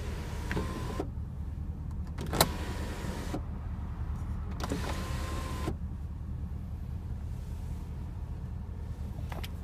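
Power sunroof motor of a 2015 Porsche Panamera Turbo running in three short spells with a faint whine, each spell stopping with a click, as the glass panel opens and tilts. A sharp click about two and a half seconds in is the loudest sound, and a steady low hum runs underneath.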